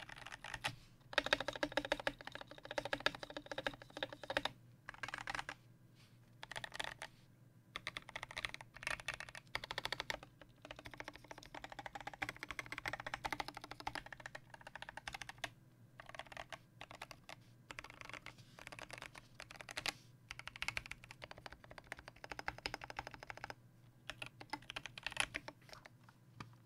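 Typing on a custom Melody96 mechanical keyboard with lubed Durock Koala tactile switches, a brass plate, an acrylic base and SA-profile PBT keycaps. Runs of fast keystrokes come in bursts of a second or several, broken by short pauses.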